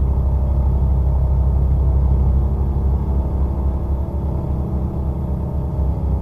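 A loud, low droning rumble made of many steady tones layered together, its lowest part starting to flutter and break up about four seconds in.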